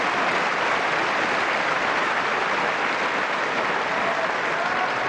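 Tennis stadium crowd applauding steadily after a point.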